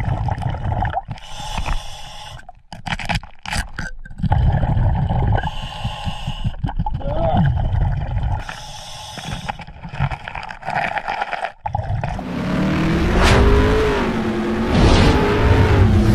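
Muffled underwater noise of water moving and bubbling, with scraping and scattered clicks against rock in a crevice. About twelve seconds in it gives way to an outro sound effect with sweeping, wavering tones.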